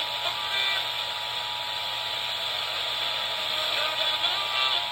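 Emergency Alert System two-tone attention signal, two steady tones held together, heard under a heavy hiss of broadcast static.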